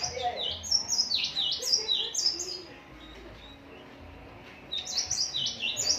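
A songbird singing: two bursts of quick, high, falling chirps, one at the start lasting a couple of seconds and another starting near the end.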